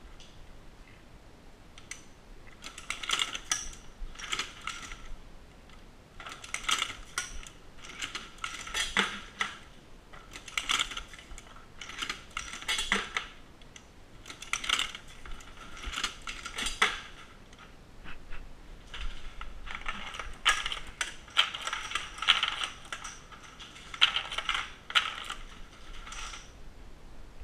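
Dillon SL900 progressive shotgun-shell reloading press being cycled by hand: a clatter of metal clicks and clacks on each stroke of the handle, roughly every one to two seconds.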